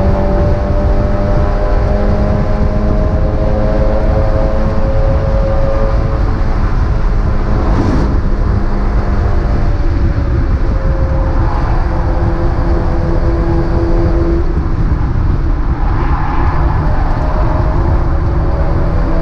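Mazda MX-5 race car's four-cylinder engine under racing load, its note falling and rising with the revs over a heavy low rumble. About eight seconds in there is a brief sharp crack.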